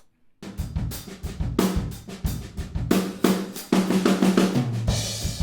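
A drum kit recording played back through all its microphones, with the hi-hat heard among the kick drum and snare hits. It starts about half a second in, after a brief gap, and plays as a steady busy groove, with a cymbal wash near the end.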